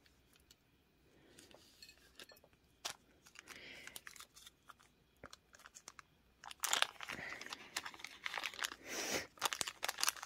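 Small plastic zip-top bags of beads crinkling and rustling as they are slid around a tabletop, with scattered small clicks. The crinkling gets louder about two-thirds of the way in.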